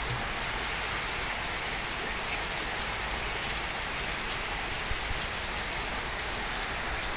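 Heavy rain falling steadily, a constant hiss with a few sharper drop impacts.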